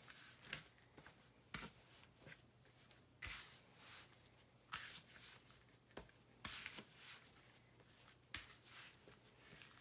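Bread dough being kneaded by hand on a floured mat: faint, irregular soft thumps as the dough is pressed down, with brushing, rubbing hisses from the floured surface about every second or so.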